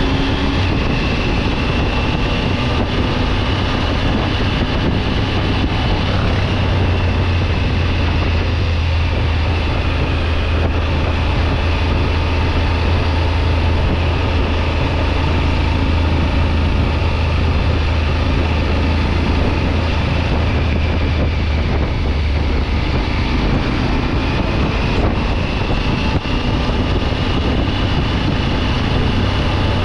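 Triumph Tiger 900 GT Pro motorcycle running steadily on the move, its three-cylinder engine giving a low hum, with wind noise on the microphone. A faint high whine slowly drops in pitch and then rises again near the end.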